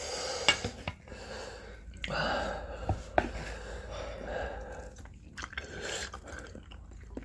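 Close-up mouth sounds of spicy instant ramen noodles being eaten, chewing and slurping, with a few light clicks.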